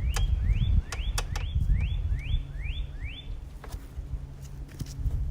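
A bird calling a quick series of rising, upslurred notes, about two and a half a second, that stops about three seconds in. A few sharp clicks and a low rumble run underneath.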